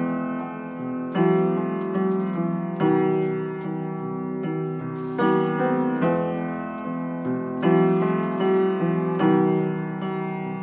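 Slow piano music, with chords struck every second or two and left to ring.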